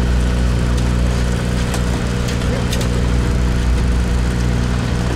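Sportfishing boat's engine running steadily at idle, a constant low drone with steady tones, with a few faint clicks over it.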